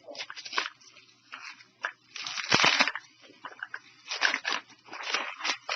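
Packaging of a mailed delivery being opened by hand: irregular crinkling, crunching and tearing, with louder bursts about two and a half and four seconds in.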